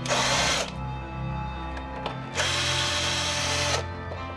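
Power drill running in two short bursts, the second longer, while opening up a plastic toy's housing.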